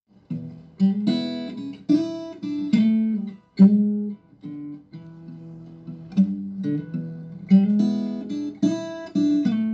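Intro music on acoustic guitar: strummed chords struck and left to ring, with a brief gap about three and a half seconds in.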